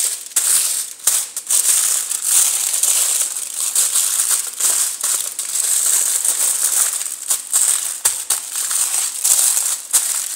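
Aluminium foil and a clear plastic bag crinkling as hands fold the foil over and press it flat: an uneven, continuous crinkle broken by sharp crackles.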